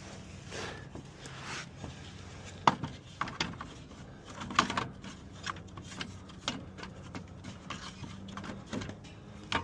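Small hard parts being handled, likely the bypass kit: irregular light clicks and rattles, with a steady low hum underneath.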